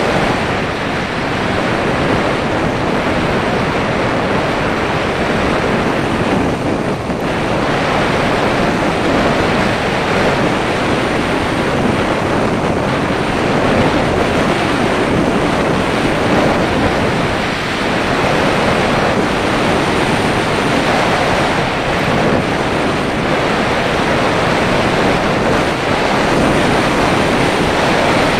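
Wind noise from air rushing over an action camera mounted on the nose of a radio-controlled glider in flight: a steady, loud rush of air that dips briefly twice.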